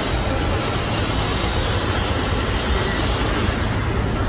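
Steady low rumble and hiss of a crowded coach park in drizzle, with buses around.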